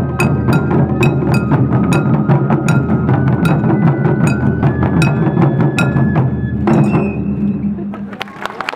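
Wadaiko ensemble of barrel-bodied taiko drums beaten with sticks under a stepping, held flute melody, with sharp clicks keeping time. About seven seconds in, the piece ends on a final hit that rings down, and clapping starts near the end.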